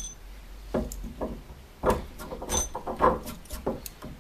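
A 5/8-inch steel hex bolt and washer being handled and pushed through a drilled hole in a wooden 2x4: a series of irregular knocks and scrapes of metal on wood, with a couple of short metallic clinks.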